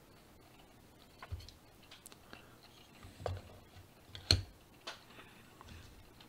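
A few light clicks and knocks of hard PLA plastic models being handled and set down on a surface, the loudest just after four seconds in.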